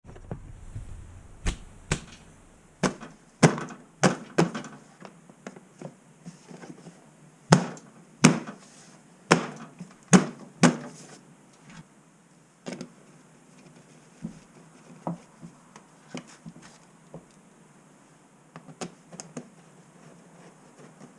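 Irregular sharp clicks and knocks of objects being handled, a dozen or so loud ones in the first half and sparser, fainter ones after.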